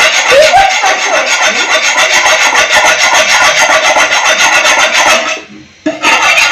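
A blade scraping rapidly and rhythmically over a large rohu fish, giving loud rasping strokes that stop briefly near the end and then start again.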